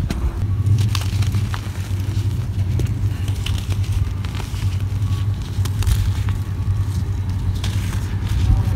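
Dry, crumbly clay-and-earth lumps being squeezed and crushed by hand: many short, crisp crunches and crackles as they break apart and the grit falls, over a steady low rumble.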